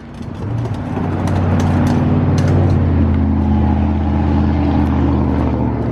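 A motor vehicle's engine running with a low, steady hum. It builds up over the first couple of seconds, then holds at a constant pitch.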